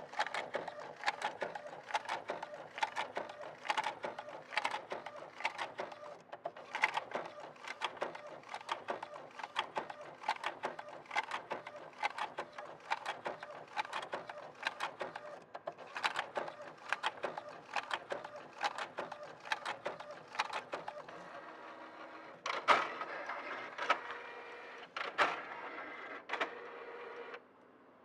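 Epson L800 inkjet printer printing with a fault: a sharp knock repeating about three times a second as the print head travels. About three quarters of the way through the rhythm stops, giving way to a steadier motor sound with a few louder knocks, which cuts off shortly before the end.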